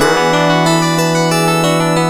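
LG MG180 mobile phone ringtone playing: a synthesized melody of several notes held at once, opening with a quick falling glide.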